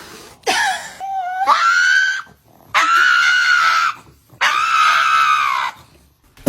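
A high-pitched voice wailing three times in long cries of about a second each, the first one rising in pitch.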